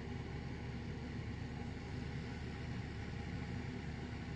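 Steady low background hum, even throughout, with no distinct clicks or knocks.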